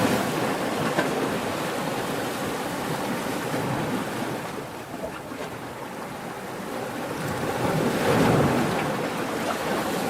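Ocean waves breaking as surf: a steady wash that eases off about halfway through, then swells again as a wave breaks about eight seconds in.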